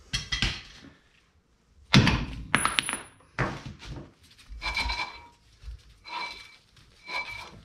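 Metal hand tools clanking and knocking as the rear axle nut is finished off. About two seconds in there is one sharp metallic clank that rings on. Several lighter ringing metal knocks follow.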